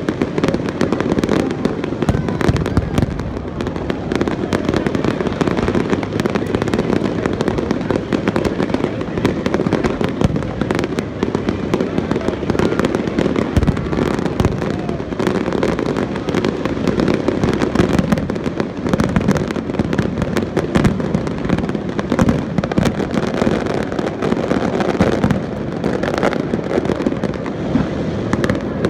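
Aerial fireworks display: a dense, continuous barrage of firework bursts and crackling, with no break.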